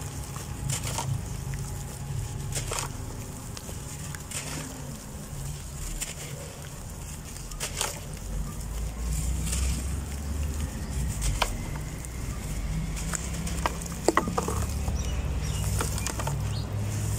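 A dry block of dirt being crumbled by hand, fine powder and grit pouring and pattering into a tub, with scattered crackles and clicks as small lumps break off and land, most of them about 14 seconds in. A steady low rumble runs underneath.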